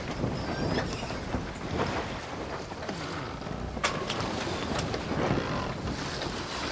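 Wind buffeting the microphone over the running noise of a boat on open water. There is a sharp click about four seconds in.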